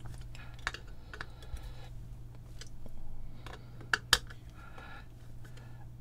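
A screwdriver tightening the small screws that clamp an LED COB chip to the floodlight's metal casting: scattered small clicks and brief scrapes, with two sharper clicks about four seconds in, over a steady low hum.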